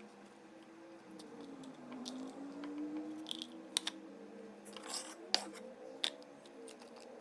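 Kitchen clatter on a wooden butcher-block cutting board: a handful of sharp clicks and knocks, mostly in the second half, as utensils and food scraps are cleared off it.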